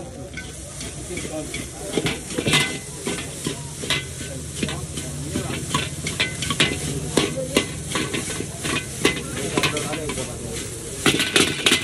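Chowmein being stir-fried in a wok: a metal spatula clanks and scrapes against the pan many times a second over frying sizzle, with a quick flurry of clanks near the end.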